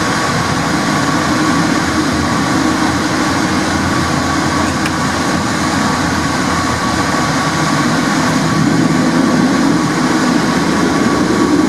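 Porto Metro light-rail tram running along the track, heard from inside at the front: a steady rumble of wheels and drive with a thin steady whine over it, growing a little louder towards the end.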